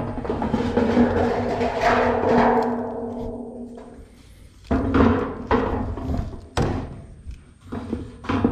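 Corrugated metal roofing sheets being shifted and knocked, with a booming, wobbling rattle that rings on and fades over a few seconds. Then three more sharp knocks of the sheet, around the middle and near the end.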